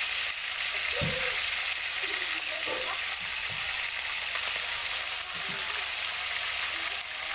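Marinated pork pieces sizzling steadily as they fry in hot oil in a wok, with more pieces being added to the oil by hand.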